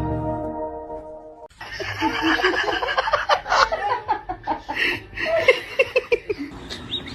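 Background music fading out, then after a sudden cut, people laughing in short, rapid, repeated bursts.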